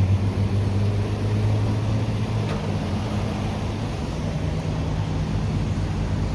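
Gas station fuel pump running with a steady low hum while fuel flows into a truck.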